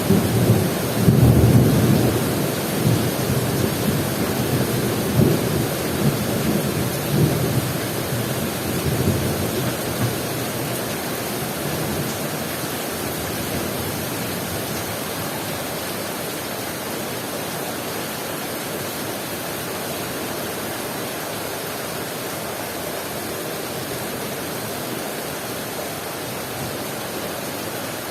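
Heavy rain pouring down steadily, with a low rolling rumble of thunder that dies away over the first ten seconds or so.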